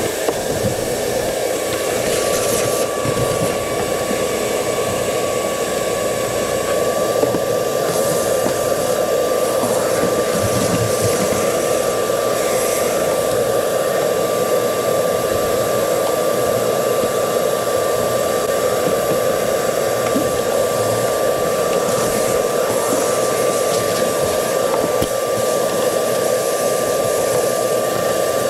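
Vacuum motor running steadily, a continuous rushing drone with a high steady whine over it, as its hose cleans the floor mat of a semi truck cab.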